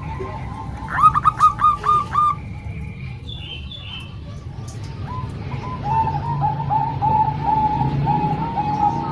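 Zebra doves, Bangkok-type and local perkutut, cooing in series of short repeated notes: a quick, loud run about a second in, then a steadier string of coos, about three a second, from about the middle onward. A low steady hum lies underneath.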